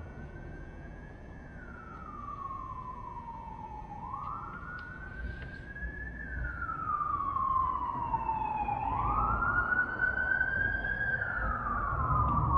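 Siren wailing, its pitch sweeping up quickly and falling slowly about every five seconds, with a second, higher siren joining about halfway through. It grows louder toward the end.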